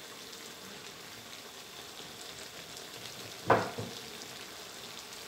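Pork and mixed-vegetable stir-fry sizzling steadily in a metal wok; about three and a half seconds in, the metal ladle knocks sharply against the wok, with a smaller knock just after.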